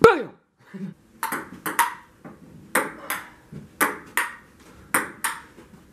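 Ping-pong ball clicking sharply off the table and paddles, the hits coming in pairs about once a second. It opens with a brief sound sliding down in pitch.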